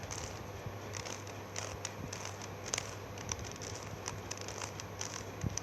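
Plastic Rubik's cube being twisted by hand: irregular light clicks as its layers turn, over a steady low hum.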